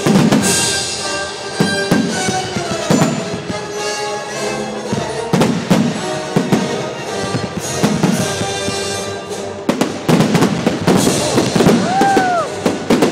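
Aerial firework shells bursting in repeated booms and crackles over music with long held tones. The crackling thickens near the end, with a brief rising-and-falling whistle.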